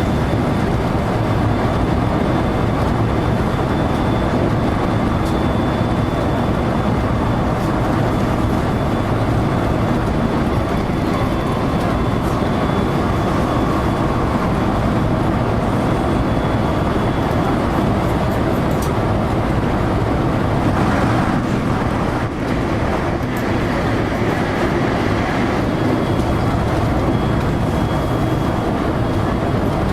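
JR electric local train running along the line, heard from inside the front car: a steady rumble of wheels on rail with a faint, thin high tone running through it.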